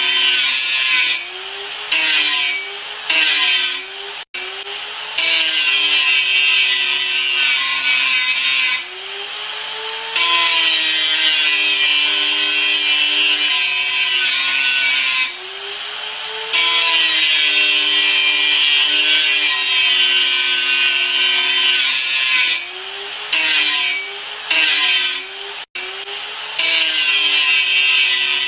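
Electric grinder running under load: a steady motor pitch under loud grinding hiss. Several times the hiss drops away for about a second while the motor keeps running and its pitch rises, as the tool is lifted off the work before it bites again.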